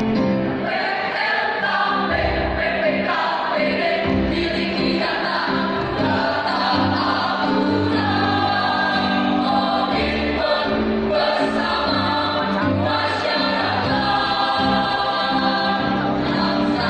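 A choir singing in chorus over instrumental accompaniment with sustained low notes.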